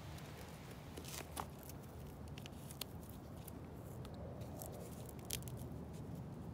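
Faint handling sounds as an Evenup shoe leveller is strapped onto a trainer: scattered light clicks and rubbing as its elastic laces are pulled over the shoe, over a low steady background hum.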